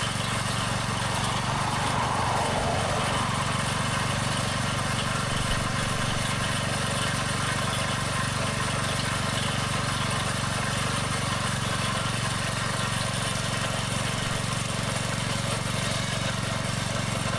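Small engine of a Janick 1500 walk-behind trencher running steadily under load as its blade cuts a trench and buries wire.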